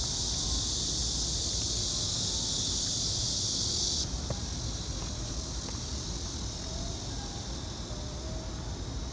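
Cicadas buzzing in a loud, steady high-pitched chorus that cuts off suddenly about four seconds in, leaving a fainter buzz, over a low hum of city traffic.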